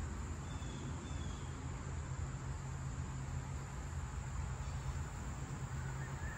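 Outdoor ambience: insects buzzing steadily at a high pitch over a steady low rumble, with a few faint short chirps about half a second to a second and a half in.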